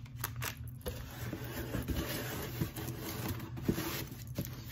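Packaging being opened and handled by hand: rustling and scraping with scattered small clicks, busiest from about a second in until near the end.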